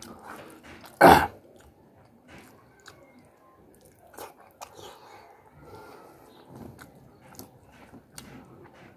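Close-miked chewing and biting of saucy chicken legs and rice, with wet mouth clicks and smacks. One short, loud burst about a second in stands out above the rest.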